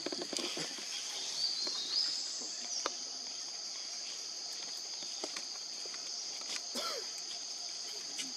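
Steady high-pitched drone of forest insects, two even tones held throughout, rising briefly about two seconds in. A few faint clicks and rustles, and one short squeak about seven seconds in.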